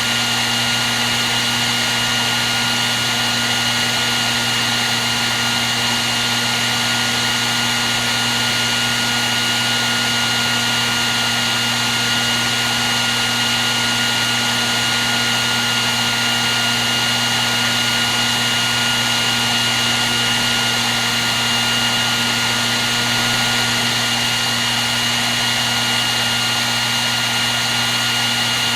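Hair dryer running continuously: a steady rush of blown air with the constant high whine and low hum of its motor, unchanging throughout.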